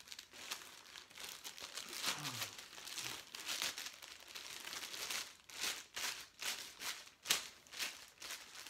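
Clear plastic wrap crinkling and rustling in short, irregular handfuls as it is pulled off a fishing rod.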